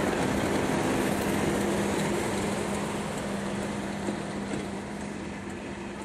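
Class 37 diesel locomotive 37516 at the rear of a passenger train passing and drawing away: a steady engine hum over the rumble of coach wheels on the rails, fading over the second half.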